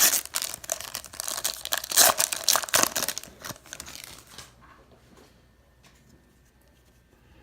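Wrapper of a 2018 Topps Chrome baseball card pack being torn open and crinkled by hand, a dense crackle for about four and a half seconds, then only a few faint clicks.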